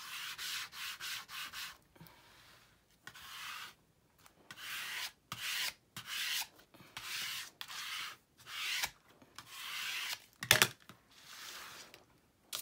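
Handheld plastic smoothing tool rubbed hard back and forth over paper, pressing patterned cardstock onto glued chipboard: repeated hissing rubbing strokes, about one to two a second. A sharp click near the end is the loudest sound.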